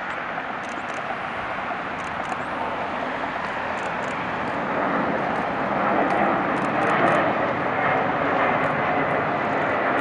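Boeing 787-8 jet engines at takeoff thrust as the airliner lifts off and climbs out: a steady, rushing jet noise that grows louder from about halfway through as the plane comes closer.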